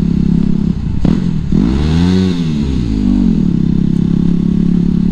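Yamaha WR250X's single-cylinder four-stroke engine breathing through an FMF Q4 silencer and MegaBomb header, running at a steady note. About a second and a half in it revs up and smoothly back down once, then settles back to the steady note.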